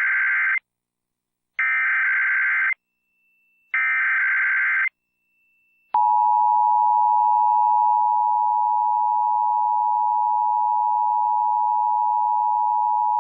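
Emergency Alert System SAME header: the end of one burst and two more bursts of screeching digital data tones, about a second each with short gaps between them. About six seconds in, the steady two-tone EAS attention signal follows, opening an EAS test broadcast.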